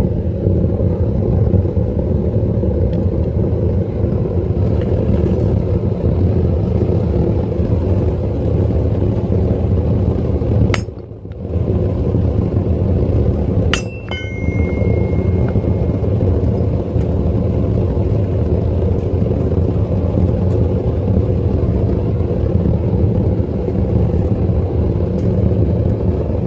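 Propane furnace burner running with a steady low rumble. About halfway through there is a brief break, then a single sharp metallic clink that rings for a moment.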